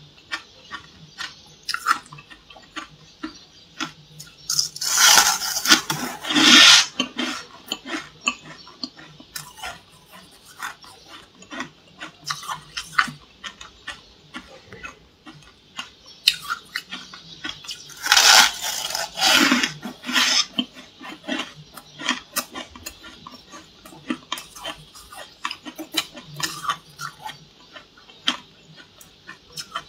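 Freezer frost being bitten and chewed close to the microphone: many crisp crackles and crunches, with two longer, louder crunching bursts about five seconds in and again about eighteen seconds in.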